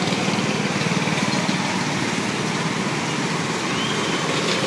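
A small motor running steadily with a rough, even drone.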